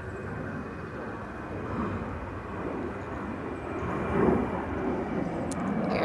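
Airliner passing overhead: a steady rushing rumble that grows louder toward the end.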